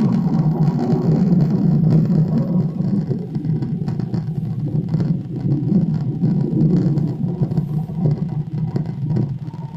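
Steady, loud, low droning rumble played back from a recording, of the kind the recordist calls a plane sound. It eases off a little near the end.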